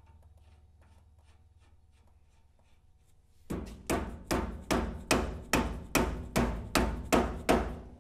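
A red-handled hammer striking the Ford Model A's front steering spindle assembly, about eleven even blows at roughly two and a half a second, beginning about three and a half seconds in. Before the blows there is only faint, quick ticking.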